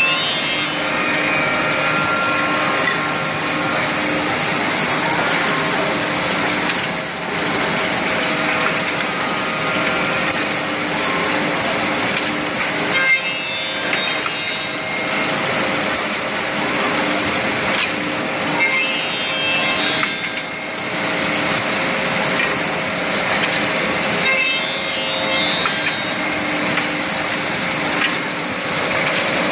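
Woodmaster WM-D200BF two-head CNC tenoning machine running: electric motors hum with a few steady tones while its spinning bristle brush wheels and heads work small wooden parts, a dense whirring, rasping noise. The noise dips briefly every six or seven seconds as the machine cycles through pieces.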